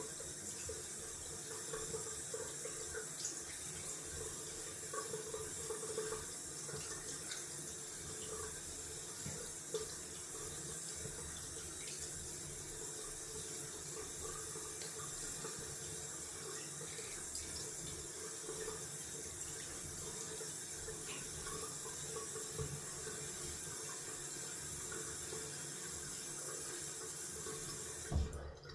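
Cold tap running steadily into a bathroom sink for a cold-water face rinse after shaving; the water shuts off near the end.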